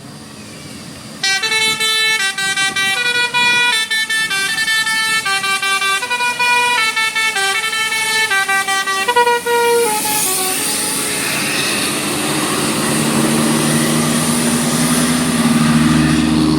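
Bus telolet horn, a multi-note air horn, playing a quick melody of clear stepping notes for about eight seconds. It gives way to a hiss and the bus's engine, whose note rises near the end.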